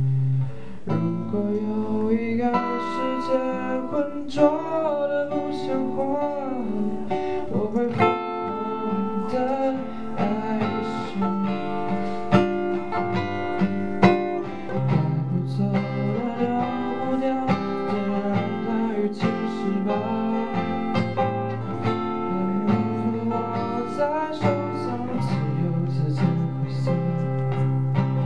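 Solo acoustic guitar playing a song, with a man's voice singing over it in places.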